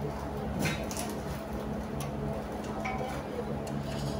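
Scattered light clicks and taps as wire and small metal fittings are handled at a wall bracket, over a steady low hum.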